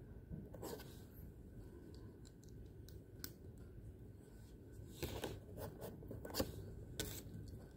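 Scattered rustles and clicks of packaging being handled and opened, with a few sharper clicks in the second half.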